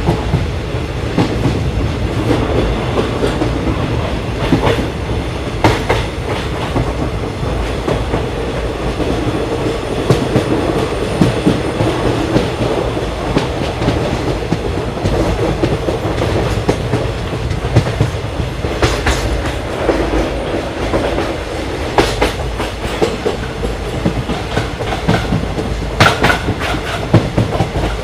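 Indian Railways ICF passenger coach running along the track: a steady rumble of wheels on rail, broken by groups of sharp clickety-clack as the wheels pass over rail joints every few seconds.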